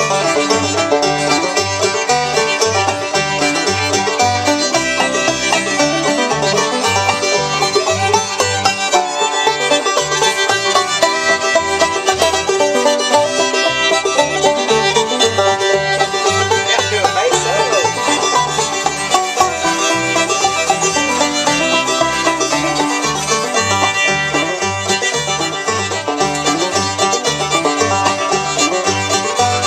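Old-time string band playing an instrumental tune, with a banjo on lead, fiddle, acoustic guitar, and an upright bass keeping a steady bass beat.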